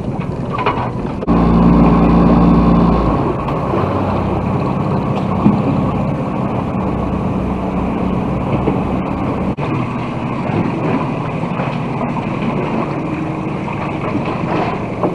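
A sailboat's motor running steadily under wind and water noise. It is louder and deeper for about two seconds starting a second in, then continues lower.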